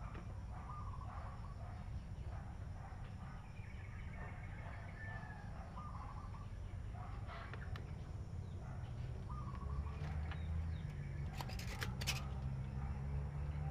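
Chickens clucking and calling now and then over a low steady hum, with a few sharp clicks near the end as a tool is handled.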